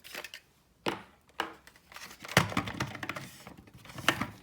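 Plastic parts of a robot and its packaging being handled: a sharp knock about a second in, another soon after, a louder knock past the middle, then a run of light clicks and rattles.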